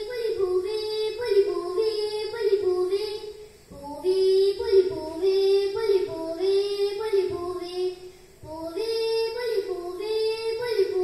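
A young girl singing a verse of a Malayalam kathaprasangam into a microphone, played back from a television. She sings three long phrases with held, wavering notes, each breaking off briefly, about four and eight seconds in.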